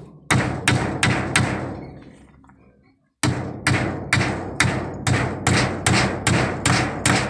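Claw hammer striking bamboo slats: four blows in the first second and a half, then after a brief pause a steady run of blows, about two or three a second.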